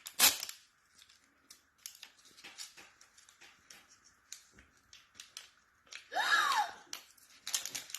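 Small plastic accessory packaging being opened by hand: a sharp crinkle at the start, scattered small clicks and rustles, a louder rustle with a brief squeak about six seconds in, then dense crinkling near the end.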